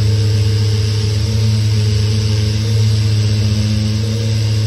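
Festool random orbital sander running steadily while rough-sanding small wood blocks: a constant motor hum with an even hiss of abrasive on wood over it.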